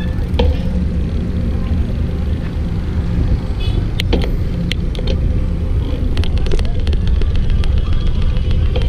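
Ride-along road noise from a moving bicycle in traffic: a steady low rumble of wind and passing vehicles, with scattered sharp clicks and rattles from about halfway through.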